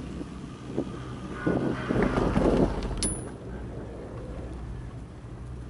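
Wind buffeting the microphone on a moving chairlift, over a low steady hum, with heavier buffeting between about one and a half and three seconds in, then a single sharp click.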